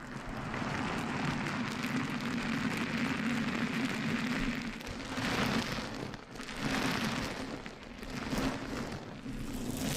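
Close-miked crackling, rustling noise from an ASMR trigger, going on steadily with a few swells in loudness.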